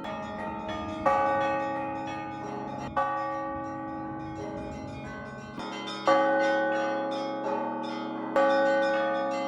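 Russian Orthodox church bells ringing: a quick patter of small bells chiming, with a heavier bell struck four times, every two to three seconds, each stroke ringing on and fading.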